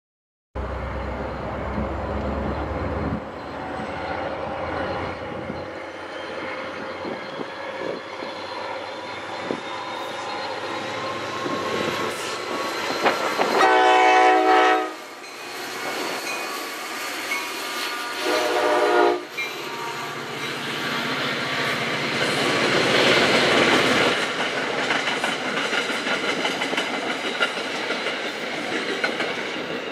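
NJ Transit diesel locomotive approaching and sounding its horn twice, a longer blast followed a few seconds later by a shorter one, then the passenger train running past.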